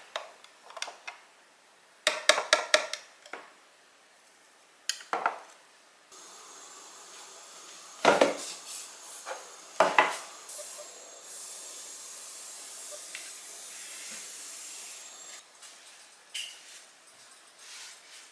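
Coffee-making handling sounds: the plastic grounds bin of a coffee grinder knocked in a quick run of taps to shake out the grounds, then several single knocks as things are set down on the counter. A steady hiss runs through the middle.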